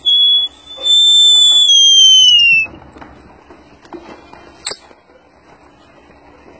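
A loud herding whistle: a short blast, then a long note that falls in pitch at its end. A sharp click follows about two seconds later.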